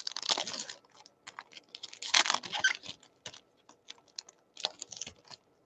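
Baseball cards being handled through a stack: irregular clicks and brief rustles of card stock sliding and snapping against card stock, in a few short flurries.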